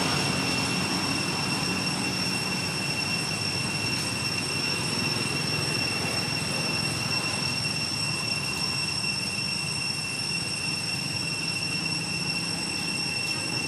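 Steady outdoor background noise: an even hiss at constant level with a thin, unchanging high-pitched whine over it. No distinct monkey calls.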